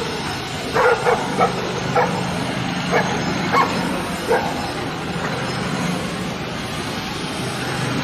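A pack of dogs barking in short, scattered barks through the first half, falling silent after about four and a half seconds, over the steady low rumble of street traffic.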